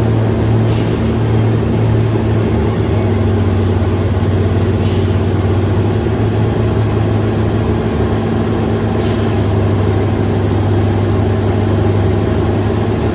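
Heavy engine of an M3G amphibious vehicle running steadily with a deep, even hum while carrying passengers, with a few faint brief hisses over it.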